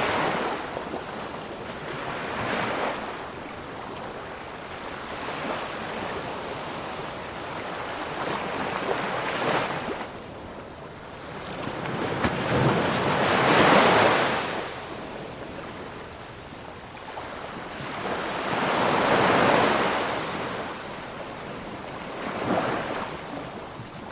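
Ocean waves breaking and washing in, the surf swelling and falling back every few seconds, with the two biggest breakers about halfway through and again a few seconds later.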